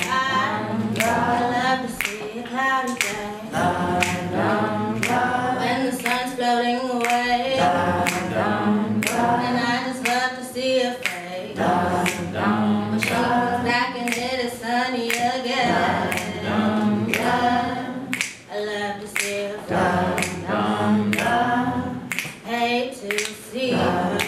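A woman singing a cappella with vibrato, joined by other voices singing along, over sharp clicks keeping a steady beat.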